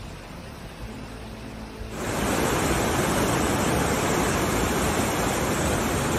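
A quieter steady hiss, then about two seconds in a loud, steady rushing of a swollen, fast-flowing river in flood.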